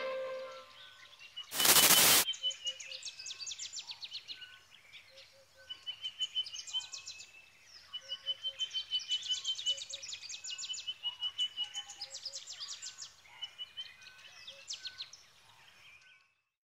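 Music fading out, then a short, loud burst of hiss about a second and a half in. After it, wild birds sing in repeated chirping phrases a second or so apart, until near the end.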